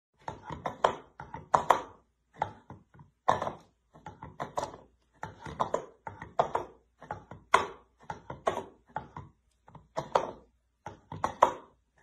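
A cat's paw repeatedly tapping and scraping inside an empty plastic food bowl, giving short clattery knocks a little over once a second.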